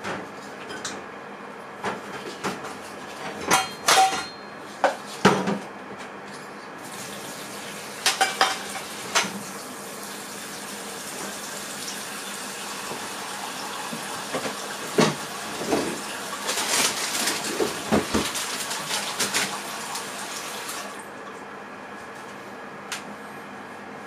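Dishes and cutlery clattering, with a tap running from about seven seconds in until about three seconds before the end, over the steady hum of a microwave oven heating.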